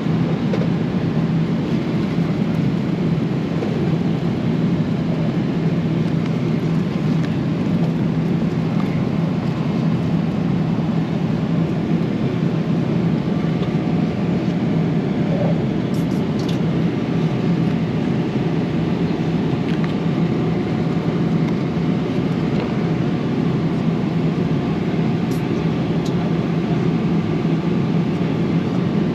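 Boeing 777-300ER cabin noise in flight: the steady roar of airflow and engines heard from an economy seat, with a steady low hum underneath.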